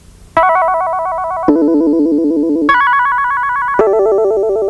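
Electronic keyboard music: a slow run of held notes with a warbling vibrato, each about a second long, stepping back and forth between a higher and a lower pitch.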